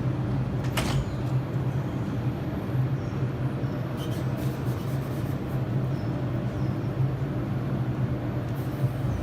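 R142 subway train running, a steady low rumble with a sharp click about a second in.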